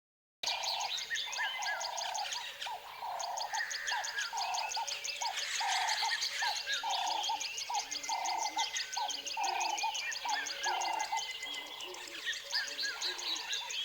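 Tropical forest ambience: birds chirping and calling, with one call repeated about one and a half times a second under a fast, high, even pulsing trill. The sound drops out for half a second right at the start and then comes back.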